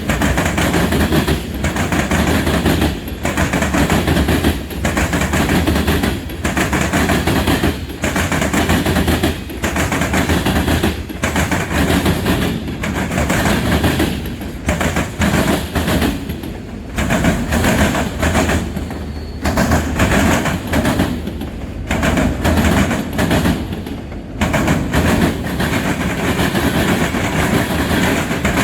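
Freight train cars rolling past close by: a continuous rumble of wheels on rail that dips briefly about once a second.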